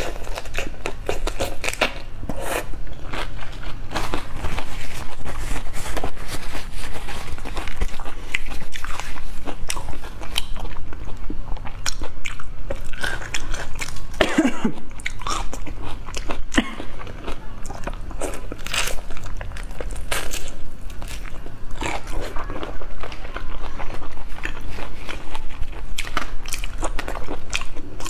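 Close-miked biting and chewing of raw shrimp, with many small crackles and clicks as prawn shells are pulled apart by hand.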